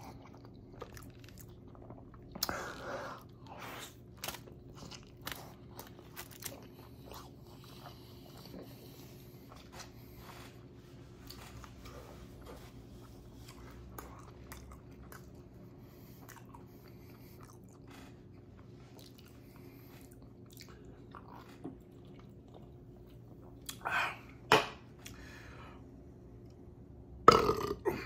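Close-up chewing of a chicken burrito: wet mouth clicks and smacking as it is chewed, over a faint steady hum. Near the end comes a loud burp.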